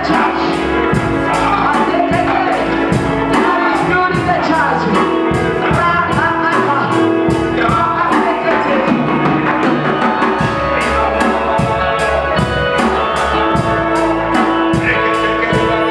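Live gospel worship music: a band with drums and a steady beat, sustained keyboard-like chords, and singing.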